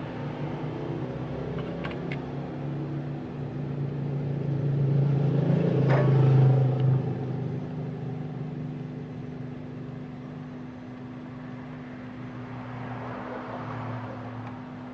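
A low rumble that swells to its loudest about six seconds in, with a sharp click at the peak, then slowly fades, over a steady hum.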